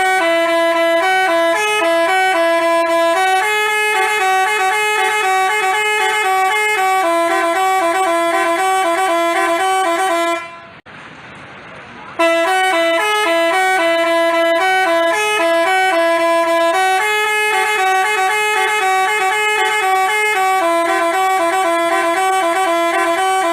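Basuri-type telolet bus horn, an electric multi-tone horn, playing a tune: steady horn notes step up and down in a melody. It stops about ten seconds in, then starts the same tune again a second and a half later.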